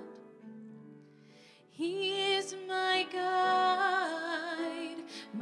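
Sung psalm music: a held keyboard chord fades over the first second or so, then about two seconds in a woman's voice comes back in, singing the next line with vibrato over the keyboard accompaniment.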